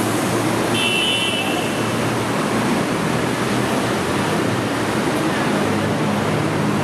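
Steady roadside city traffic noise with engines running, and a short high-pitched tone about a second in.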